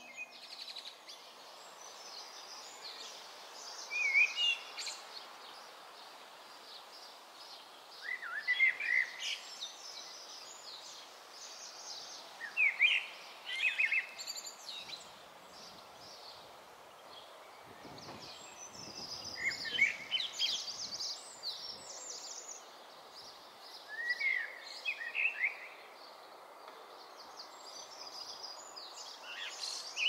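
Common blackbird singing: short fluty, warbling phrases, each with higher squeaky notes on top, repeated about every four seconds over a steady outdoor hiss.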